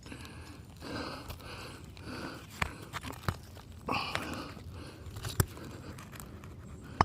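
Asphalt roof shingles being handled and shifted: faint crinkling and crunching, with a few sharp clicks.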